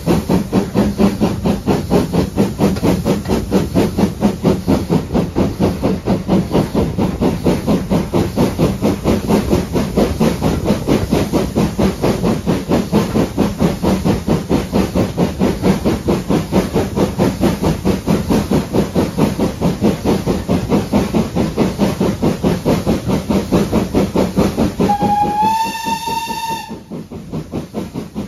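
Steam locomotive working along at speed, its exhaust beating in a rapid, even rhythm, heard from a carriage window just behind the engine. Near the end the locomotive's steam whistle sounds one blast of about two seconds, rising slightly in pitch as it opens, and the exhaust beats are quieter after it.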